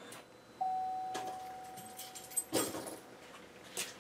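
A single steady electronic chime held for about two seconds and slowly fading, with a few light clicks and a knock, as the pickup is shifted into reverse and its new LED backup lights come on.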